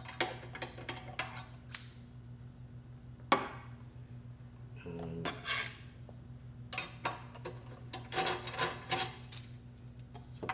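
Metal clinks and taps from handling an aluminium rod-and-plate optical assembly: the finder scope lifted off its mount and hex-key tools picked up and set down. Scattered clicks, one sharp knock about three seconds in, and bunches of light rattling in the second half, over a steady low hum.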